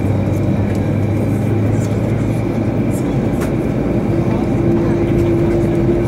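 Airbus A321 cabin noise while taxiing: the steady hum of the CFM56 engines at idle, with a steady tone that grows stronger about four seconds in.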